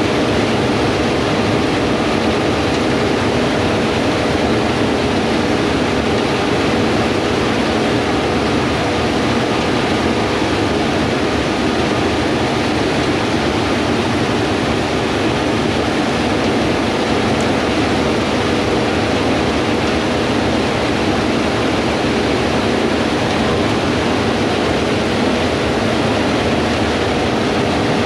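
Steady machine noise: an even rushing sound with a few held hum tones underneath, unchanging throughout.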